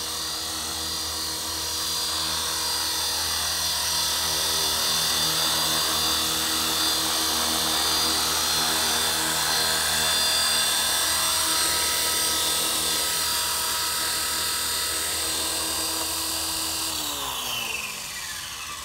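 450-size radio-controlled helicopter in an Airwolf scale body, its motor and rotor whining steadily as it hovers low and touches down. Near the end the pitch falls and the sound fades as the rotor spins down after landing.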